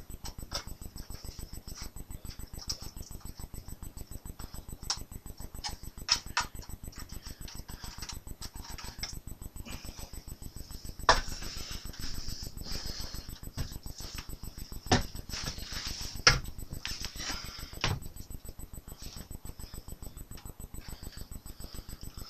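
Scattered clicks, knocks and rustling from handling a plastic scale model airliner while hanging it, loudest in a few sharp knocks past the middle. A steady fast pulsing noise runs underneath.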